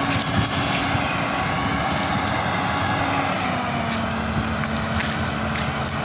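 Combine harvester's engine and machinery running steadily while its rear straw drum is emptied onto a heap. The engine hum drops slightly in pitch a little past halfway.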